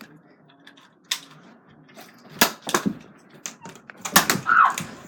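Nerf foam-dart blasters clacking: several sharp plastic clicks and snaps of priming and firing, a few of them in quick pairs.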